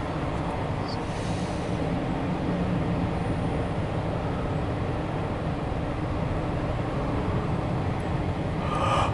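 Cars of a CSX intermodal freight train rolling past: a steady rumble of wheels on the rails.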